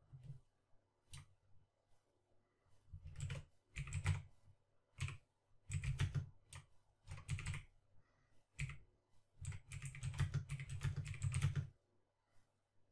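Typing on a computer keyboard: runs of keystrokes, one for each word, with short pauses between them. The typing starts about three seconds in and stops shortly before the end.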